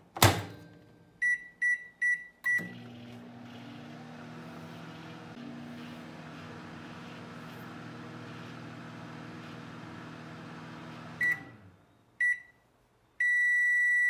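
A thud, then four short keypad beeps as a microwave oven is started, and the oven hums steadily while it heats a cup of coffee. The hum stops about eleven seconds in, and the oven sounds its end-of-cycle alert: two short beeps and then one long beep.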